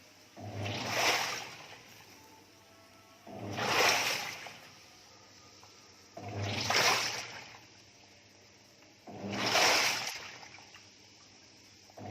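Toshiba 10 kg top-loading automatic washing machine agitating water in its tub: the wash plate turns back and forth, making a sloshing swish about every three seconds, each stroke opening with a low motor hum. It is filling and agitating to clean the tub and clear out deposits.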